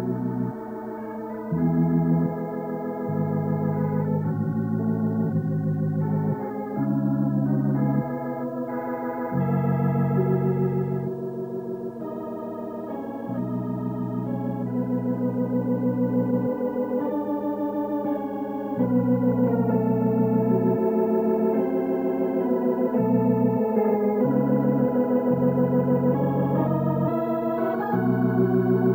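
Organ music accompanying the silent film: held chords that change every second or two, with a slight waver in the sustained notes.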